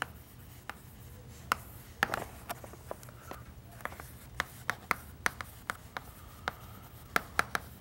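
Chalk writing on a green chalkboard: irregular sharp taps and short scratches as each letter is drawn.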